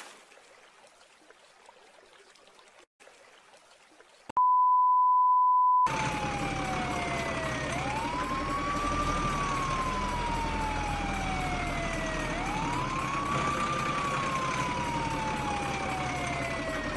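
Faint noise, then a loud steady beep of about a second and a half, followed by an electronic wailing siren that rises quickly and falls slowly, twice over.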